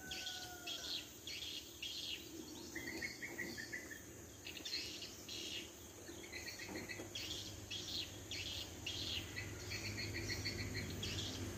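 Insects and birds chirping: repeated bursts of high chirping with several short, quickly pulsed trills.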